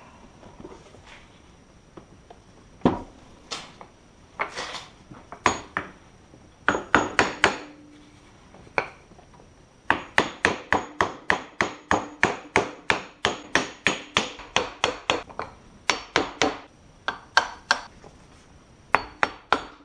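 Hammer blows knocking a Porsche Cayman 987 front coilover into place on the car until it sits past its locating tab. First a few separate knocks, then from about halfway a quick run of sharp strikes, about three or four a second, with short pauses.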